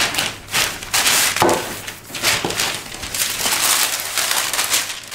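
Irregular crinkling and crackling as stiff shortcrust pastry dough is pressed and rolled out with a rolling pin, the noise coming in uneven rough strokes.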